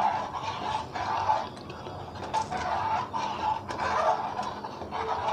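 Metal spoon stirring dry macaroni through a pot of water and oil: irregular sloshing and swishing strokes, with a few light ticks of the spoon against the pot.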